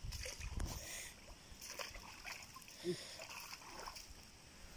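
Faint splashing and sloshing of shallow stream water as a hooked fish is grabbed at the water's edge, with a low rumble of handling near the start and a few short knocks.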